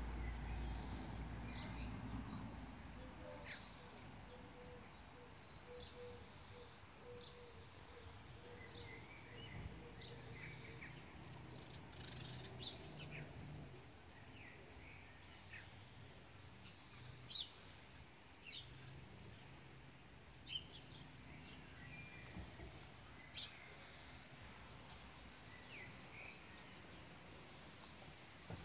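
Faint outdoor ambience with many short, scattered bird chirps and whistles, over a low rumble that eases after the first couple of seconds.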